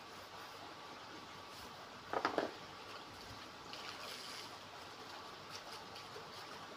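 Water from a thin garden hose trickling and splashing over a tortoise's shell while the shell is scrubbed by hand, with a brief, louder pitched sound about two seconds in.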